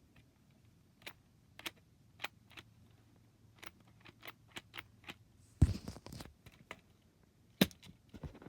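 Light plastic clicks and taps from a Lego model being handled, with one heavier knock about halfway through and a sharp click near the end.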